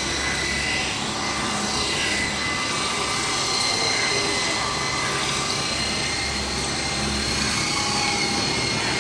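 Double Horse 9081 3-channel electric RC helicopter in flight: a steady high whine from its small electric motors over the whirr of the rotors, the pitch wavering slightly as the throttle changes.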